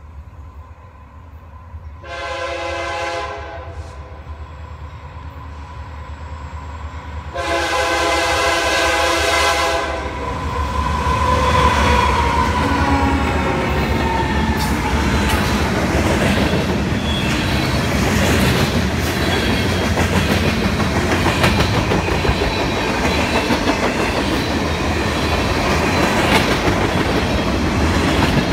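A CSX freight train's diesel locomotive horn sounding a multi-note chord in two blasts as the train approaches, a shorter one then a longer one. Then the locomotive's engine passes close, and the freight cars roll by with a steady clickety-clack of wheels over the rail joints.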